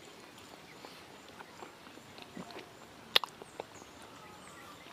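Soft mouth sounds of a person chewing durian flesh: faint wet clicks and lip smacks, with one sharp smack about three seconds in.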